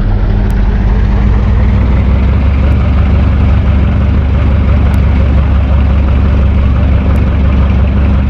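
Electric fan running with a loud low motor hum under a steady rush of air, picking up speed over the first couple of seconds and then holding steady.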